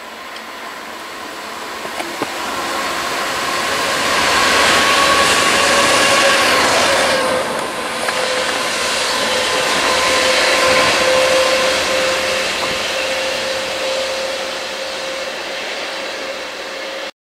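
GBRF Class 66 diesel-electric locomotive (EMD two-stroke V12) running light, passing at speed: its engine noise builds as it approaches, and a steady whine drops in pitch as it goes by about seven seconds in. The noise then recedes and cuts off abruptly near the end.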